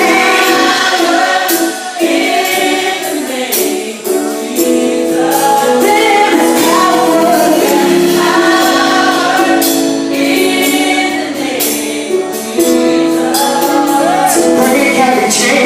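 Gospel vocal group singing a worship song live, several voices together, over sharp percussion strokes that keep the beat.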